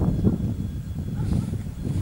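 Wind buffeting the microphone over the low rumble of a distant approaching TEP70BS diesel locomotive.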